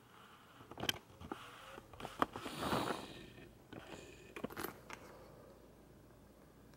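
Faint handling noise from a fabric Longchamp handbag and its inside tag being fingered: a few light clicks and a brief rustle, then quiet room tone.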